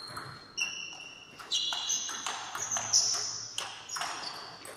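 Table tennis rally: the celluloid ball clicking sharply off the bats and the table in a quick, irregular series of hits, with short high ringing tones, echoing in a large gym.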